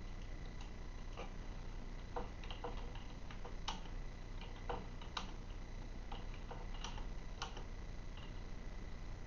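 Faint, irregular short clicks, about fifteen of them at uneven intervals, over a low steady hum.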